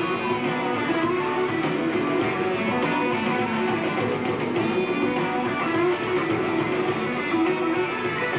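Rock band playing live through an instrumental passage, electric guitar out in front, over bass and a steady drum beat.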